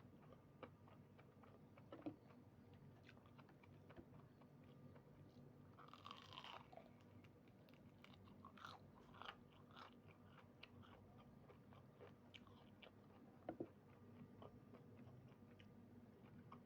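Faint chewing and crunching of food, with scattered small crackles that come thicker around the middle.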